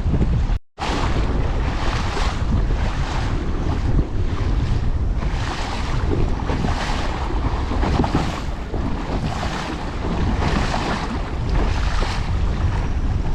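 Strong wind buffeting the microphone with a heavy low rumble, over choppy whitecapping water that splashes in a regular rhythm about once every second and a bit. The sound cuts out for an instant near the start.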